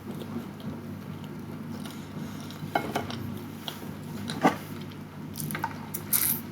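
A person eating, with a few sharp clicks and knocks, the loudest about four and a half seconds in and a cluster near the end, over a steady low hum.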